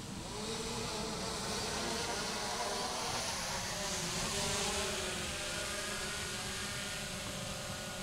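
Small camera drone hovering, its propellers giving a steady buzzing whine whose pitch drifts slightly as it moves, a little louder from about half a second in.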